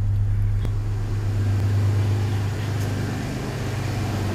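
Chevrolet S-10 pickup engine idling steadily, with a single sharp click about two-thirds of a second in.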